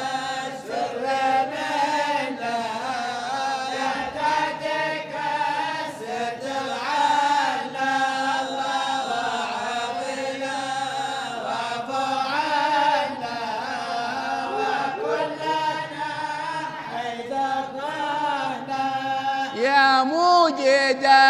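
Many men's voices chanting together in a Sufi hadra: a sustained, slowly wavering unison drone of a devotional refrain. Near the end, a single voice rises above the group with ornamented, arching phrases.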